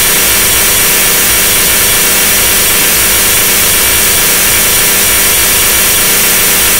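Harsh, loud, steady wall of distorted electronic noise in a glitch/extratone track, a continuous buzzing drone that does not change.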